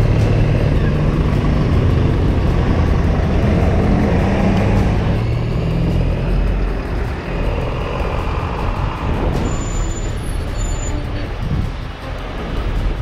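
Motorcycle engine running under the rider while riding through city traffic, with wind and road noise. A steady engine note for the first five seconds or so gives way to a rougher mix of road noise and passing traffic.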